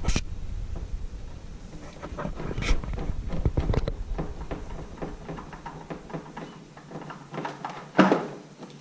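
Irregular clicks, scrapes and knocks of a wrench working a spin-on oil filter loose on a mower engine, with one loud knock about eight seconds in.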